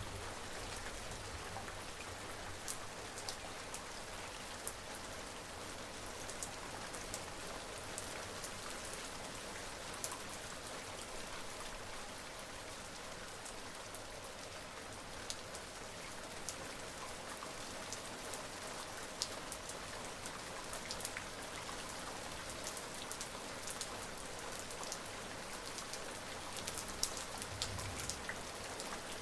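Steady rain falling, with individual drops ticking sharply on a surface now and then.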